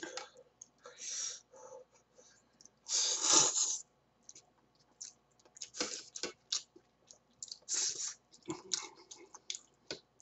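Ramen noodles being slurped and chewed: a string of short wet mouth noises with a louder, longer slurp about three seconds in.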